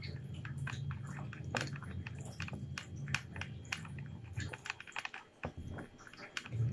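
Cat eating wet tuna-in-jelly food from a plastic bowl: quick, irregular wet chewing and lapping clicks, several a second. A low steady hum sits underneath and drops away about two-thirds of the way through.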